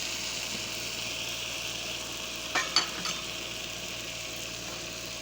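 Curry sauce sizzling in a pot as it is stirred. Three quick clinks of the spoon against the pot come about two and a half to three seconds in.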